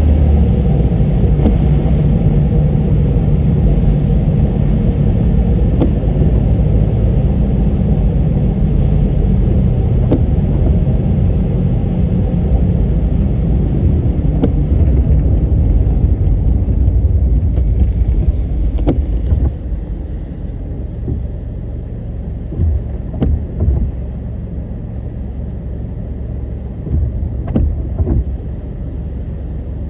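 A car driving along a road: steady low rumble of the engine and tyres, easing to a lower level about two-thirds of the way through, with a few short sharp clicks after that.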